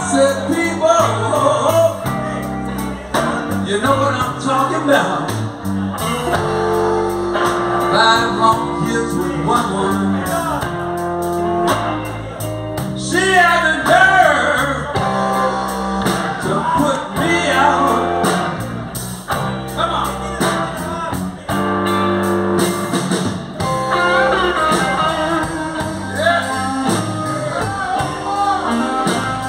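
Live electric blues band playing: several electric guitars over a drum kit, with a man singing at times.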